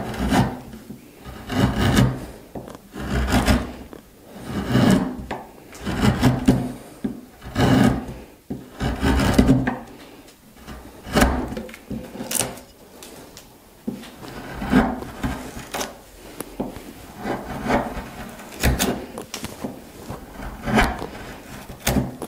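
Freshly sharpened wood chisel, pushed by hand, paring thin curls from the end of a softwood board: a series of about fifteen short cutting strokes, roughly one every second and a half.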